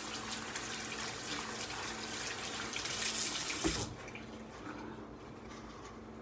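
Kitchen faucet running water into a sink, shut off about four seconds in with a single knock.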